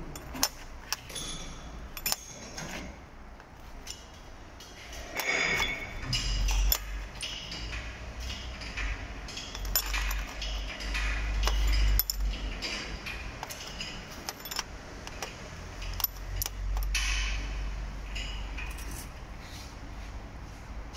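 Used engine bearing shells and spark plugs being handled on a metal bench, clinking and knocking against each other and the bench in many short, irregular strikes. A low rumble comes and goes beneath them.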